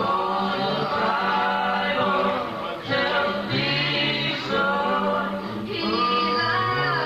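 Male gospel vocal group singing a cappella in close harmony, held chords over a steady bass part, phrase after phrase with brief breaks between them.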